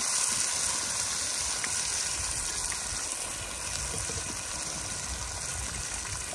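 Chile sauce frying in hot lard in a clay pot as it is strained in by hand: a steady sizzling hiss.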